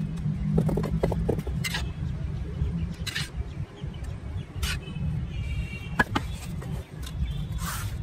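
A steel trowel scraping and smoothing wet concrete in a baluster mould, a handful of short separate scrapes, over a steady low rumble.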